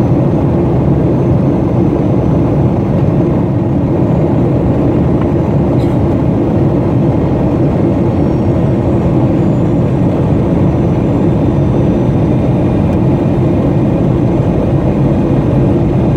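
Steady jet airliner cabin noise at a window seat beside the wing: a Boeing 737's turbofan engine and airflow heard through the cabin wall, with a steady low hum.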